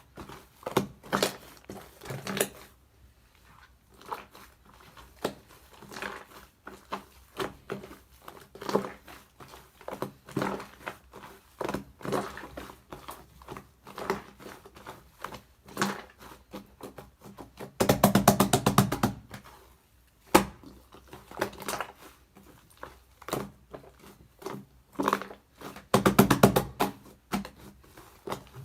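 Shaving-foam slime being squished and pressed by hand: irregular soft pops and crackles. Twice, about 18 and 26 seconds in, comes a denser burst of rapid crackling.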